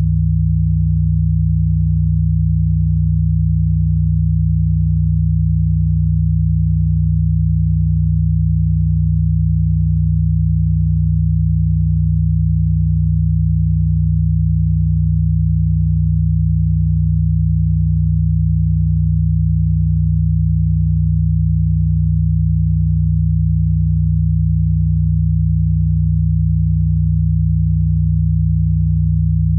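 Steady, unchanging low electronic sine tone, a 'healing frequency' drone, with no rise, fall or break.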